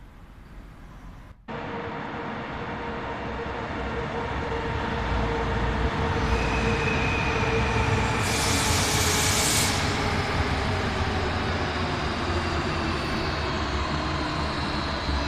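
Electric commuter train pulling into an underground station and braking. A steady rumble of wheels on rail carries motor whines that fall in pitch as it slows, and a loud hiss of about a second and a half comes roughly eight seconds in.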